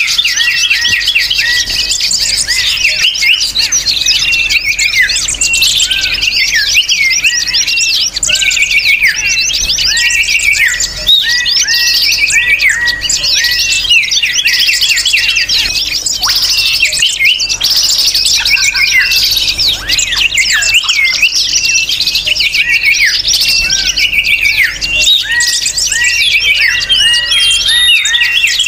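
A dense chorus of many small songbirds chirping and twittering over one another without a break: fast, high, overlapping chirps and short down-slurred notes. It is a noisy mixed-bird lure call of the kind played to draw wild birds in.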